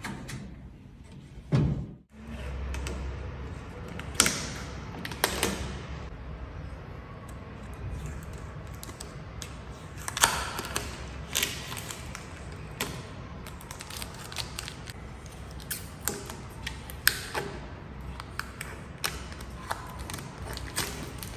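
Packaging being handled and removed from a new cooker: scattered irregular clicks, taps and knocks, with a louder knock about a second and a half in.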